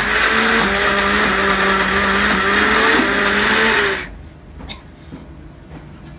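Electric blender-grinder running loud, grinding green chillies with a little water: a dense whirring with a steady motor hum, switched off abruptly about four seconds in.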